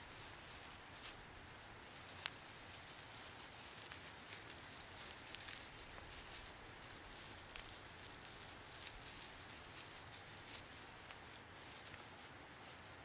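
Dry grass crackling and rustling as it is rubbed, fluffed and twisted between the hands into a tinder nest for flint-and-steel firelighting. It is a dense, continuous patter of small crisp crackles.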